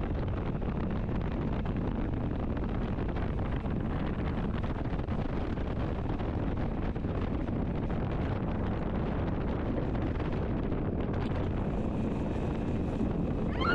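Outboard-powered speed boat under way: a steady rush of wind on the microphone over the motor and hull on the water.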